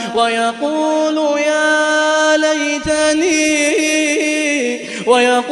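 A man chanting Quran recitation in tajweed style, drawing out long, ornamented melodic notes. He takes a short break near the end, then starts a new phrase on a rising note.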